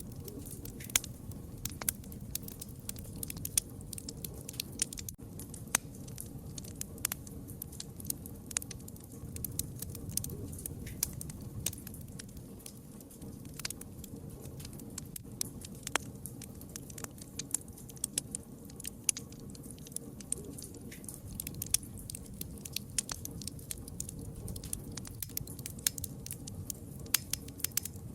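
Wood fire crackling: frequent irregular sharp pops and snaps over a low steady rush of burning.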